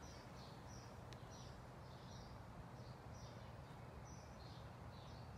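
Near silence: faint outdoor ambience with a steady low hum and a small creature's short high chirp repeating about two to three times a second.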